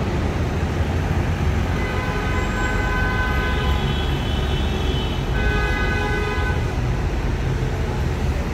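Road traffic rumbling steadily, with a vehicle horn held twice for a second or two each, about two seconds in and again about five seconds in.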